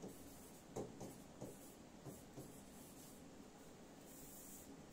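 Stylus pen writing on an interactive touchscreen board: faint scratches and taps of the pen tip on the screen as letters are written, the clearest tap a little under a second in.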